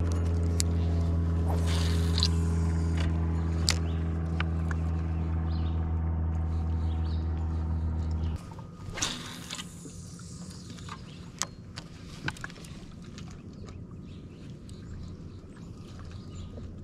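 A steady low motor hum on a boat, cutting off suddenly about eight seconds in. After that it is quieter, with scattered light clicks and taps.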